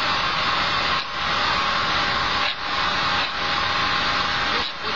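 Steady, loud hiss of air rushing at a pneumatic control valve's air supply, dipping briefly about a second in, again at about two and a half seconds and just before the end.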